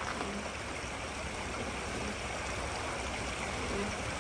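Shallow creek water running steadily over rocks, with a low steady rumble underneath from the idling truck.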